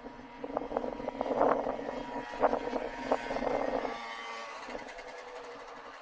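A motor vehicle on the road, its engine running rough and uneven, then dying away into the distance from about four seconds in.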